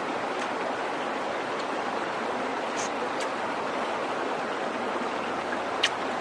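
Steady rushing of a stream running over rocks, with a few faint clicks and one sharp click near the end.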